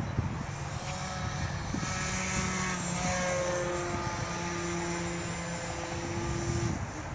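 Radio-controlled model airplane's motor and propeller flying, a steady tone that shifts in pitch a few times as it passes and changes throttle.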